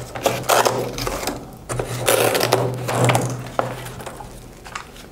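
Velcro straps ripping open and the airsoft rifle scraping and knocking against its cardboard box as it is lifted out: a few rasping tears in the first three seconds and a couple of sharp knocks.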